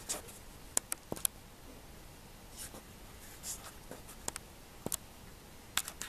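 Quiet room tone with a scattering of small, sharp clicks and taps, several in quick pairs, and a couple of soft rustles.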